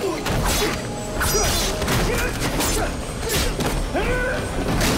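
Movie fistfight sound effects: a rapid series of punches and body hits landing, with some crashes, over action film music.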